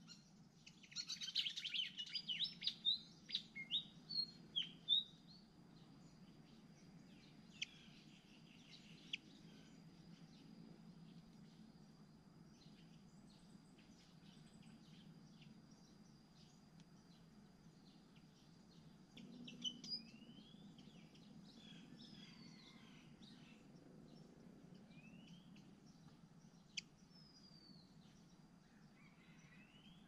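Malaysian pied fantail nestlings giving a rapid run of high begging chirps for a few seconds, then scattered faint chirps and a few short rising whistles over a faint steady high whine.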